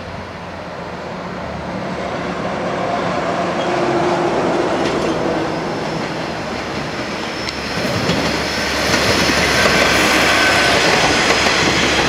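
JR West etSETOra sightseeing train, a KiHa 47 diesel railcar, approaching and passing close by: the diesel engine and the wheels on the rails grow steadily louder, loudest in the last few seconds as the cars go past.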